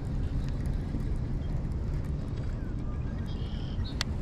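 Wind buffeting the microphone: a steady, gusty low rumble, with one sharp click near the end.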